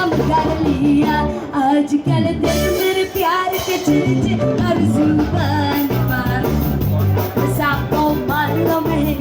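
Background music: a song with singing over a steady bass and drum beat.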